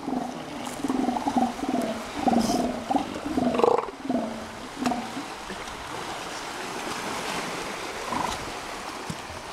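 Northern elephant seals calling: a run of pulsed calls through the first five seconds and one more short call about eight seconds in, with water lapping and splashing behind.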